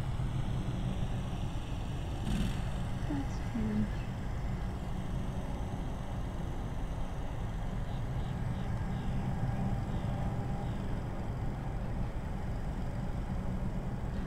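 Steady low outdoor rumble with no clear single source, and a few short faint calls about two to four seconds in.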